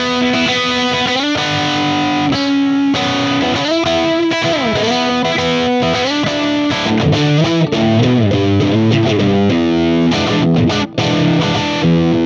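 Overdriven electric guitar played through a Universal Audio UAFX Lion '68 Super Lead amp pedal, emulating a Marshall Plexi with a 4x12 cabinet loaded with 30W Greenbacks. It plays lead lines: held notes with a bend and vibrato about four seconds in, then quicker runs of notes in the second half.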